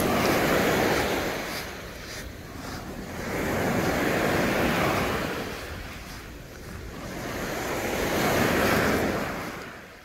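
Small waves breaking and washing up a sandy shore: three swells of surf about four seconds apart, each rising and then draining away.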